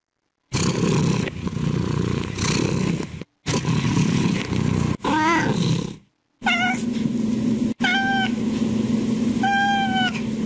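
A domestic cat meowing four times, short calls from about five seconds in, the first one wavering in pitch. The sound is chopped by abrupt cuts of silence, with a noisy haze before the meows and a steady low hum under them.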